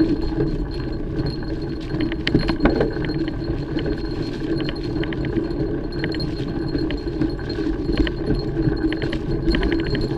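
Mountain bike rolling over a trail: a steady rolling rumble with frequent small metallic rattles and clinks from the bike.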